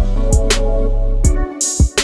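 Background music with a steady drum beat over held bass and melody notes; the bass drops out briefly near the end.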